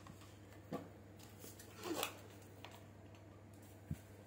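Faint rustles of artificial flower stems and leaves being handled and pushed into a vase, with a small tap near the end, over a steady low hum.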